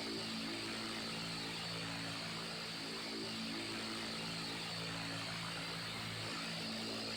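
Electric fan running steadily: an even rush of air with a low motor hum whose tones waver and shift every second or two.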